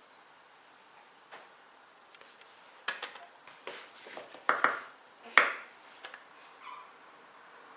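Scattered light taps and clicks of a makeup brush against a plastic eyeshadow palette, with two sharper knocks a little past halfway through.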